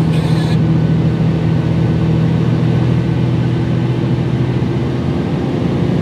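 Car engine running steadily at cruising speed with tyre and road noise, a low even drone heard from inside the cabin.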